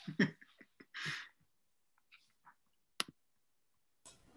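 A quiet pause with a few soft breaths from a person in a small room, then one sharp click about three seconds in.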